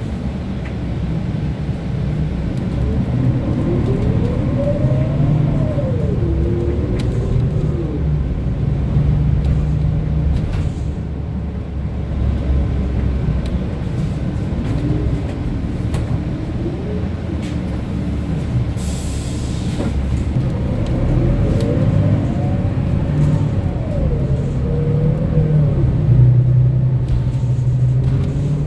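Inside a 2025 Gillig BRT CNG transit bus under way: the natural-gas engine and driveline give a steady low rumble. Twice a whine climbs and falls as the bus accelerates and shifts up through its gears. A brief hiss comes about two-thirds of the way through.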